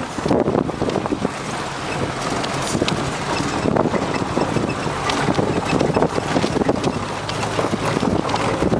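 Off-road 4x4 driving slowly along a snowy, rutted forest track, heard from inside the cabin: the engine running steadily under many short knocks and rattles from the body and suspension over the ruts.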